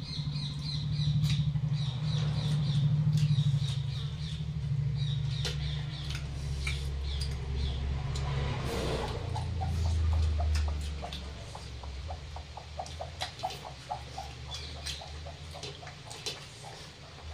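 Eating sounds from people eating by hand from steel plates: chewing, and fingers working rice and chicken on the plates. In the second half this becomes a quick, even run of small wet clicks, about three a second. Short high chirps repeat through the first few seconds, with a low hum underneath.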